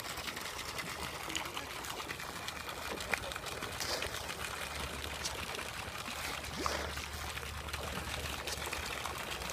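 Steady trickling, running water, with faint small splashes here and there as fish break the surface.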